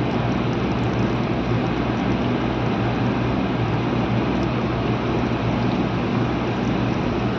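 Soyabean kababs frying in hot oil: a steady sizzling hiss over a low, constant hum.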